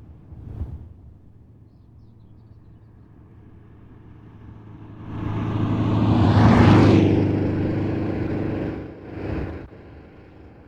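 A car driving past on a country road: its engine and tyres build up, are loudest about seven seconds in, then fade away. A much shorter swell comes under a second in.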